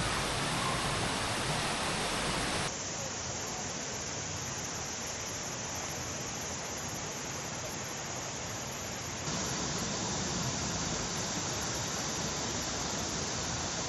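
Valley stream water rushing steadily, a constant hiss of flowing water. It changes abruptly, duller and softer about three seconds in, then fuller again about nine seconds in.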